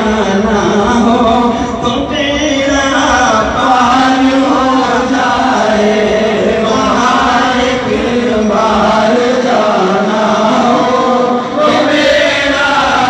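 Men chanting an Urdu naat, Islamic devotional verse, into microphones over a sound system: a lead voice with others singing along.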